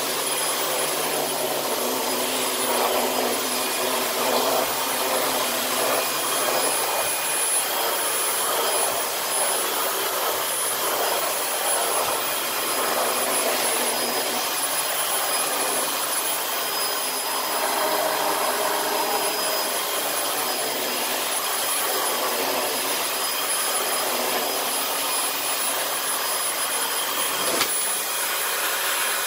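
Dyson DC18 Slim upright vacuum cleaner running steadily, with the brush roll engaged: a constant motor whine over a rush of air that swells and fades in the middle range.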